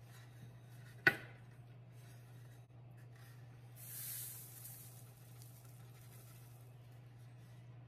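A single sharp knock about a second in, then loose sugar grains sliding and hissing out of a metal muffin pan's cups onto parchment paper as the pan is shaken, for about a second. A steady low hum runs underneath.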